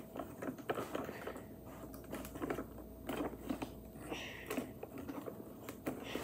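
Small irregular clicks, taps and rustles of hands working a wooden toy crane kit, fiddling its plastic spools and threading string through it.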